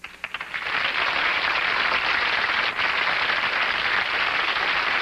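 Studio audience applause: a few scattered claps swell within the first second into steady, loud applause.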